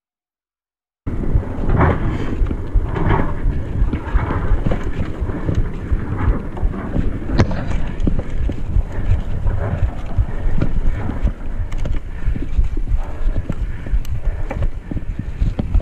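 Mountain bike ridden over a bumpy grass-and-dirt trail: wind buffeting the microphone over a steady rumble of knobbly tyres, with frequent rattles and knocks from the bike jolting over the bumps. The sound cuts in abruptly about a second in.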